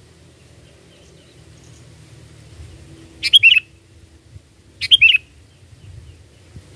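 Sooty-headed bulbul (kutilang) giving two short, loud chirping calls about a second and a half apart, each a quick run of looping notes, over a faint low background rumble.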